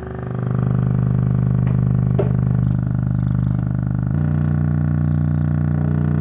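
A Pyle Power 6.5-inch subwoofer driver playing a steady low bass test tone in free air, a buzzy hum that grows louder about half a second in. About four seconds in it steps to a different pitch.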